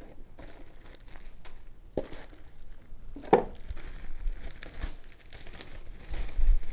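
Plastic packaging bags crinkling and rustling as they are pulled from a cardboard box and handled. Two sharp knocks, one about two seconds in and a louder one just over three seconds in.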